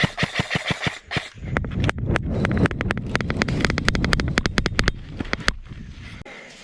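Airsoft guns firing: a fast burst of sharp cracks, about nine a second, in the first second, then a longer run of rapid, uneven shots over a low rumble until about five and a half seconds in.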